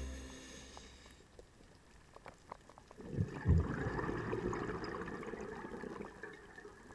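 Background music fades out in the first second, leaving scattered small clicks. About three seconds in, a scuba diver's exhaled bubbles gurgle up with a low thump, then slowly fade.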